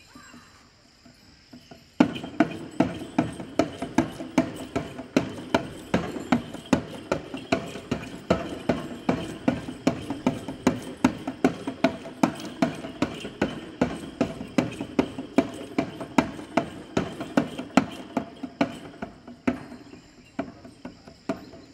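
Jhakri shaman's dhyangro frame drum beaten in a steady dance rhythm, about three beats a second. The beating starts about two seconds in and thins out near the end.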